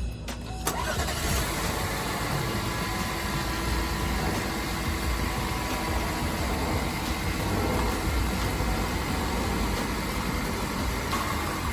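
Cadillac ATS's 2.0-litre turbocharged four-cylinder engine, fitted with a Mishimoto intake tube in place of the baffled stock tube, coming in abruptly under a second in and then idling steadily.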